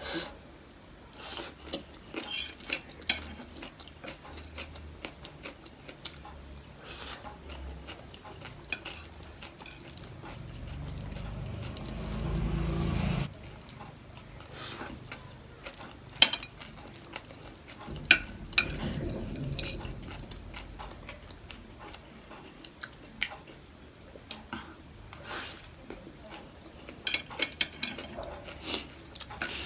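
Close-miked eating of panipuri: chewing and crunching, with sharp clicks of a spoon against a dish scattered throughout. About ten seconds in, a louder low rushing sound swells for a few seconds and cuts off suddenly.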